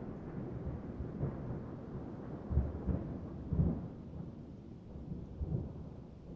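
Low rolling thunder rumbling and slowly fading, with a few heavier low rumbles in the middle, over steady rain on a car roof.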